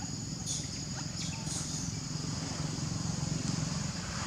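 A small engine running nearby, a low, fast-pulsing drone that slowly grows louder, over a steady high-pitched insect buzz. A few faint short clicks come between about half a second and a second and a half in.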